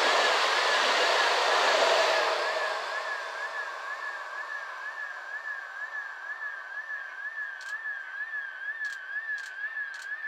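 Trenord ETR526 electric multiple unit passing at speed, a rush of wheel-and-rail noise that fades out about two and a half seconds in. A steady warbling tone goes on underneath, and a few sharp clicks come near the end.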